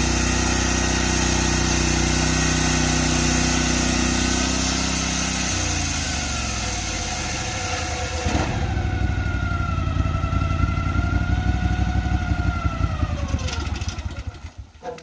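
Portable bandsaw sawmill's engine running steadily at speed, then throttled down about six seconds in to a rougher, pulsing lower speed with a wavering whine above it. The engine stops near the end.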